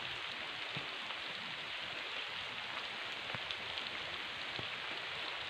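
Steady rain falling, with a few sharper drop ticks here and there.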